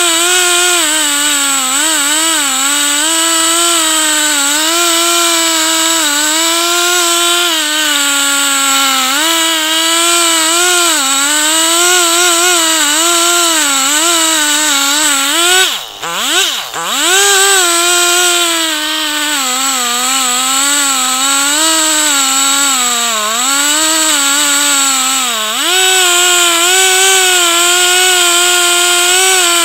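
Two-stroke chainsaw on a chainsaw mill running at high revs through a log, its pitch wavering as the chain bogs and recovers in the cut. About halfway through the throttle is let off twice and the pitch plunges before climbing back, and it sags again once near the end.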